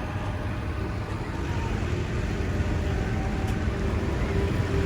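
Tractor engine running steadily with a low rumble that grows slightly louder.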